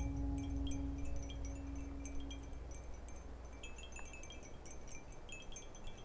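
Wind chimes tinkling in scattered, irregular high notes, over a low steady tone that fades out about two and a half seconds in.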